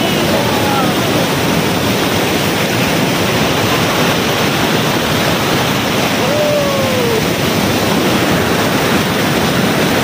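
Athirapally Falls' mass of falling water: a steady, loud, even rush of white water that never lets up.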